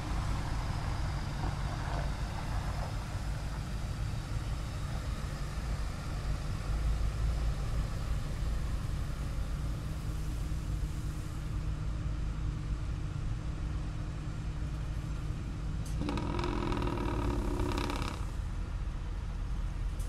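Police water cannon truck with its engine running in a steady low rumble, with a hiss above it. About sixteen seconds in, a pitched blare sounds for about two seconds.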